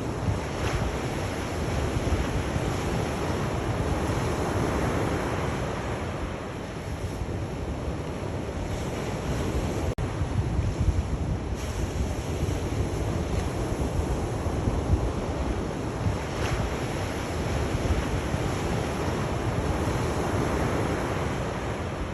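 Sea waves washing onto the shore, a continuous surf noise that swells and recedes every few seconds, over a low wind rumble on the microphone. A brief click cuts in about halfway through.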